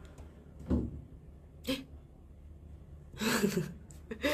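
A young woman's voice in a few short, soft bursts with no clear words, the longest about three seconds in, over a low steady room hum.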